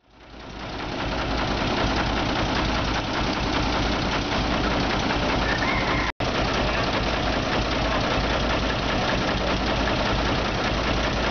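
Diesel engines running steadily: a Kubota U35 mini excavator working as it loads soil, with a dump truck idling. The sound fades in over the first second and cuts out briefly about six seconds in.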